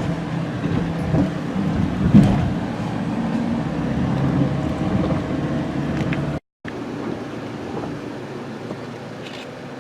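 Car engine running as the vehicle drives along, a steady low hum. A sudden cut about six and a half seconds in gives way to a quieter, even road and wind noise.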